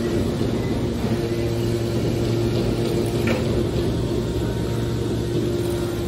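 Hydraulic scrap metal baler's power unit running with a steady low hum, with a brief higher-pitched noise about three seconds in.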